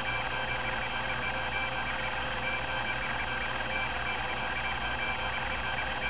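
Epson-Seiko HD-860 20 MB MFM hard drive seeking continuously at random during an access-time benchmark: its linear stepper motor and rack-and-pinion head actuator make a steady stream of rapid stepping and whining tones over the spinning disks.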